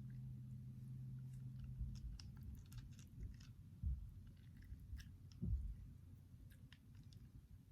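Faint sticky squishing and crackling of homemade slime being mixed and kneaded by hand, with two soft low thumps midway. A low steady hum stops about two seconds in.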